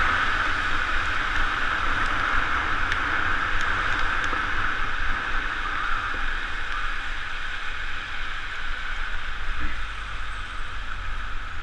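Steady hiss and low rumble of a bicycle ride through traffic on a rain-wet street: tyres on wet pavement and wind on the camera.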